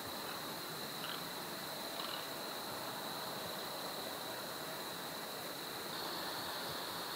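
Outdoor trail ambience: an even hiss with a steady high-pitched drone that gets a little louder about six seconds in.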